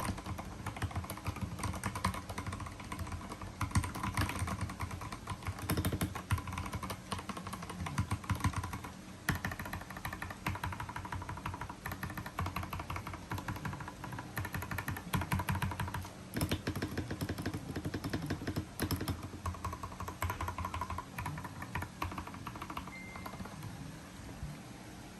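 Steady, fast typing on a Lychee GK98 mechanical keyboard fitted with lubed Gateron Pro Brown tactile switches: a continuous run of keystroke clacks with only brief pauses.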